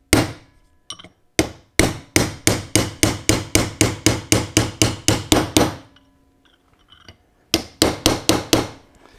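Hammer striking a punch on the inner race of a ball bearing, tapping the press-fit bearing down onto a Muncie 4-speed input shaft: a run of sharp metal-on-metal taps about three a second, a pause of over a second, then another quick run of taps near the end.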